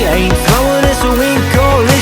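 Pop song with a steady beat and a singing melody line.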